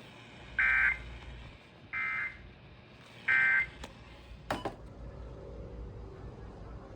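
Three short bursts of NOAA Weather Radio SAME data tones, the end-of-message signal that closes a broadcast warning, followed by a few sharp clicks about four and a half seconds in.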